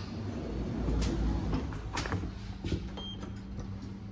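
Several sharp knocks and clicks over a low rumble, with one short high beep about three seconds in.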